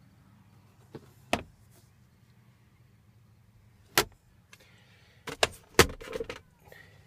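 Sharp clicks and knocks of handling inside a car cabin: one about a second in, a louder one just after, another at about four seconds, and a quick run of them near the end, over a steady low hum.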